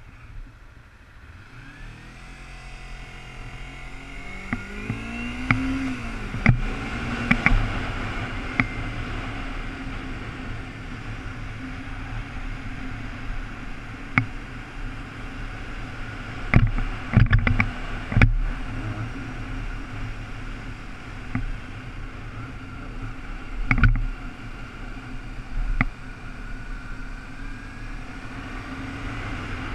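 Sport motorcycle engine pulling away from a standstill, its pitch rising and dropping through the first gear changes, then running at road speed under a steady rush of noise that grows louder as speed builds. Several sharp thumps stand out, a few in a cluster past the middle.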